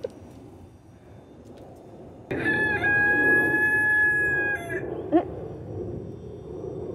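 A rooster crowing once, a long call held at a steady pitch for more than two seconds, starting about two seconds in, followed by a short call a moment later.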